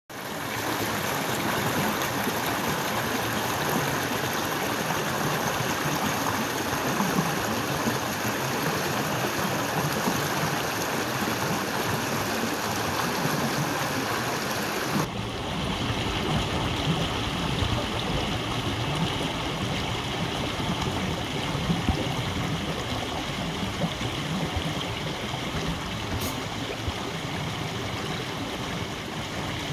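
Steady rush of a stream pouring over small waterfall cascades into rock pools. About halfway through, the sound changes abruptly to a deeper, fuller rush with less hiss.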